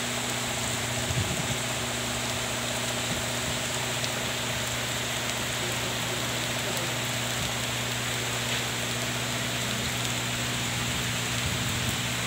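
Steady rain falling on trees and grass, an even hiss that holds without let-up, with a faint steady low hum underneath.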